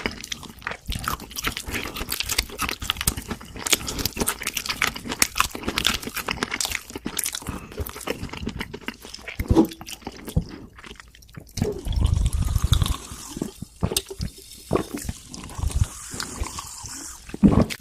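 Close-miked chewing and crunching of fried food, with irregular crisp crackles and wet mouth clicks. A brief low rumble comes about twelve seconds in.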